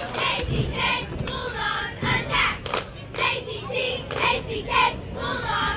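Young girl cheerleaders chanting a sideline cheer in unison, in short rhythmic phrases punctuated by sharp claps.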